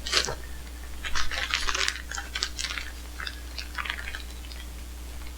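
Packages being handled: irregular crinkling and rustling of the packaging, densest in the first couple of seconds and thinning out toward the end.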